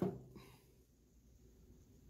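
Near silence: quiet shop room tone, with a faint brief rustle right at the start.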